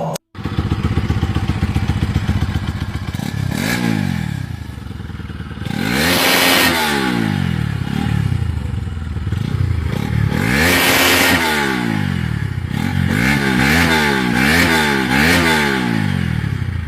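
Bajaj Pulsar NS200's single-cylinder engine with a modified exhaust pipe, idling and then revved: two long climbs in pitch a few seconds apart, followed near the end by a quick series of sharp throttle blips.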